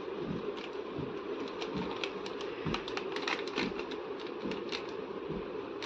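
A plastic packet of gram flour crinkling and crackling in the hand as flour is shaken out of it into a steel bowl: a run of small, irregular ticks and crackles over a steady low hum.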